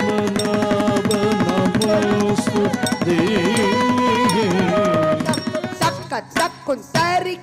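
Live Carnatic music ensemble accompanying Bharatanatyam: a sustained, gliding melodic line over a drone with drum accompaniment. About five seconds in it gives way to sharp, rapid percussive strokes.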